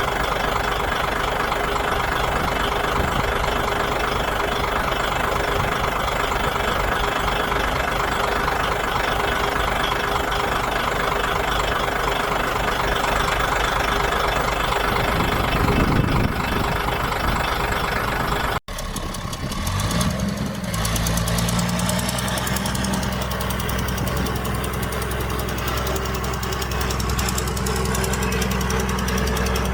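Diesel engines of heavy earthmoving machinery running steadily. About two-thirds of the way through the sound cuts abruptly, and a deeper engine then revs up briefly before settling into a steady run.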